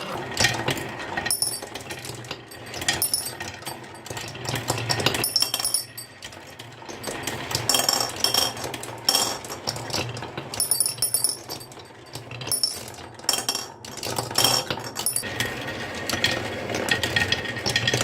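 Marbles rolling and clattering down a marble run, with a steady rattle and many quick clicks and bright clinks as they knock against the track and each other.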